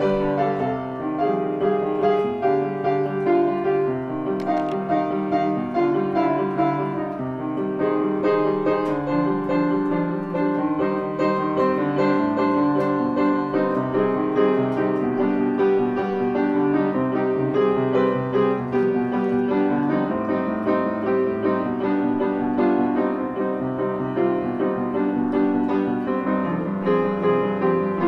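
Background music: piano playing a steady flowing melody with chords.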